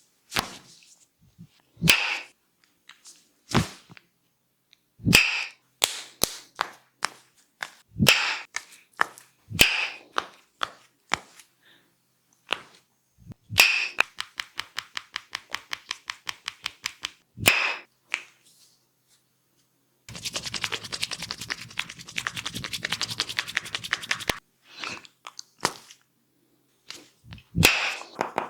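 Massage percussion: a string of loud, sharp slaps and claps, then runs of quick even tapping, about four or five strokes a second midway and a much faster dense patter lasting about four seconds near the end.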